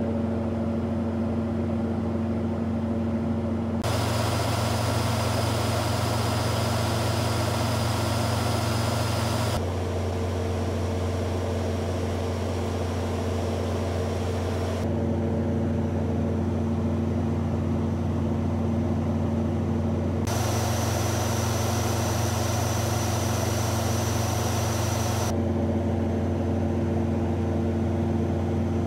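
Large Kohler diesel generator running steadily under a load bank load of several hundred kilowatts, a constant deep hum. Every five seconds or so the sound switches abruptly between a duller hum and a brighter, hissier one.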